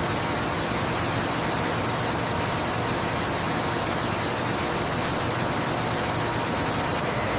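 Factory machinery running steadily: a continuous even mechanical noise with faint steady high-pitched whines.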